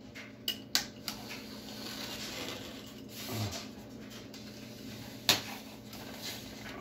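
Plastic sheeting crackling as it is cut and pulled with a razor knife that is kind of dull, with a few sharp snaps and clicks, the loudest about five seconds in.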